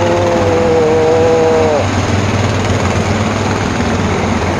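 Convoy of quad bikes and off-road vehicles driving slowly past, engines running steadily over road noise. A steady engine whine holds for about the first two seconds, then drops away.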